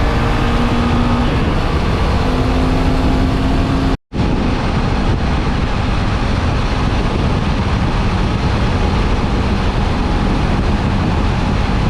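Motorcycle engine running at cruising speed under a heavy, steady rush of wind on the microphone, with a faint engine hum in the first few seconds. The sound cuts out for a moment about four seconds in, then the wind rush and engine resume.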